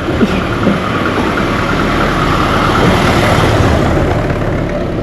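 A motor vehicle's engine running close by as it passes, growing louder to a peak about three seconds in and then easing off.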